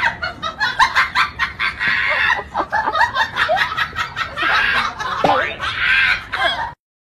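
Chicken-like clucking mixed with laughter, cutting off abruptly near the end.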